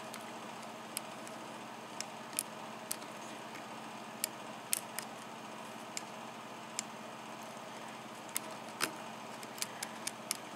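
Faint, irregular clicks of a steel hook pick working the pins of a Yale 6-pin cylinder lock under tension during single-pin picking, as the pick lifts and probes the pin stacks one by one.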